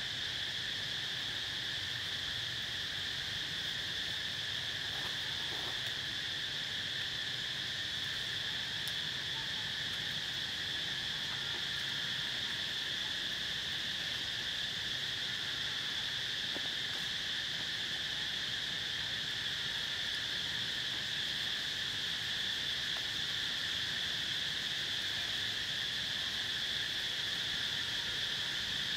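Steady insect chorus: an unbroken, high-pitched shrill drone that does not change.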